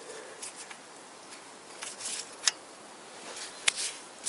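Light scattered clicks and scrapes of a small oil pressure sensor being handled and tried by hand into its threaded port in the engine block, with two sharper clicks past the middle. The sensor is not yet catching its threads.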